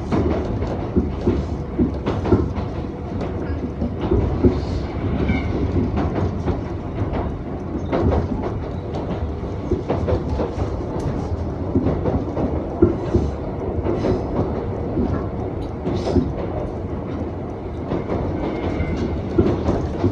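Running noise of an Iga Railway 200-series electric train, a former Tokyu car, from on board: a steady rumble with wheels clicking over rail joints at irregular intervals and a faint steady hum.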